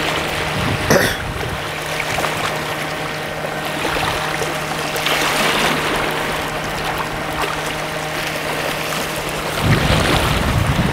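Sea waves washing against a rocky shore: a hissing wash that swells and ebbs every few seconds, with a sharp click about a second in.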